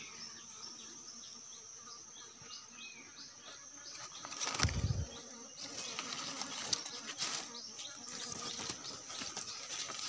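Steady high buzz of forest insects, with many short repeated chirps. From about four seconds in, dry leaves and twigs rustle and crackle as someone moves through the leaf litter, with a dull bump on the microphone about halfway.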